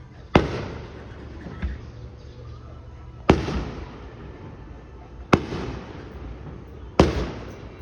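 Fireworks going off: four loud bangs roughly two seconds apart, each trailing off in a rolling echo. A fainter bang comes about a second and a half in.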